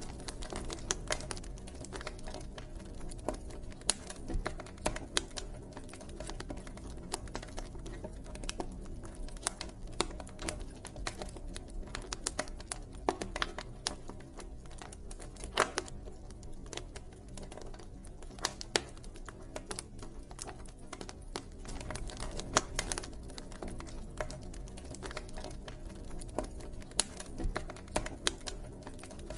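Campfire crackling: irregular sharp pops and snaps of burning wood, some much louder than others, over a steady low rush of the flames.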